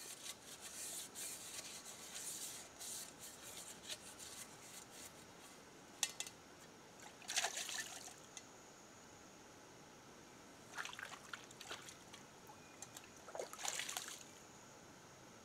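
Faint water trickling and splashing as a small container is dipped into a shallow pool and poured out: a light spattering trickle at first, then several separate splashes in the second half.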